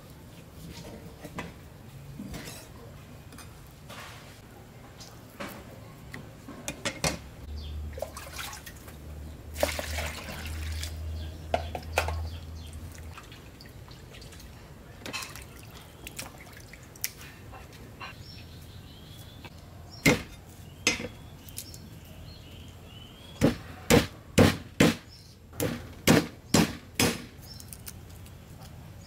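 Raw pork pieces being washed by hand in a plastic basin of water, with splashing and dripping. Later come sharp knocks: two a second apart, then a quick run of about six.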